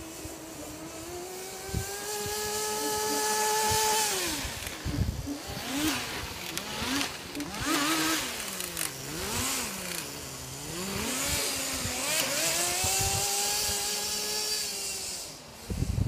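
Kyosho Blizzard 1/12 RC vehicle's small nitro glow engine running hard. The pitch climbs and holds high for a few seconds, then drops and wavers up and down through the middle as the throttle is worked. It climbs and holds again, then eases off near the end.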